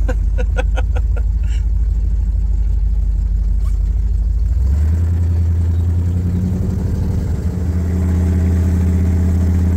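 Supercharged hot-rod pickup engine heard from inside the cab: a steady low running note, then about halfway through it picks up and accelerates, the pitch rising, with a brief dip near three-quarters of the way in, as at a gear change, before it settles into a louder, steady pull.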